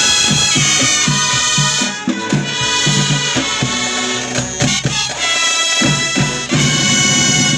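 Drum and bugle corps playing: held brass chords over a drumline of snare drums, tenor drums and bass drums beating a rhythm.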